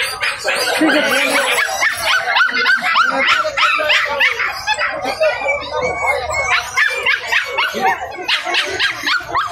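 Many puppies yapping and yelping at once: a dense, overlapping run of short, high yips with no let-up.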